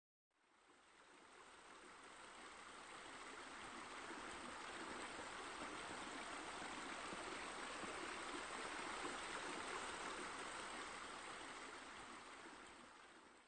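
Steady rush of water falling, as from a rock waterfall spilling into a pool. It fades in over the first couple of seconds and fades out near the end.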